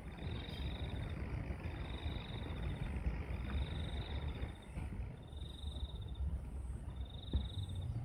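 A small animal repeating a high, buzzy trill, five times, each about a second long and about a second and a half apart. It sits over a louder low rumbling noise.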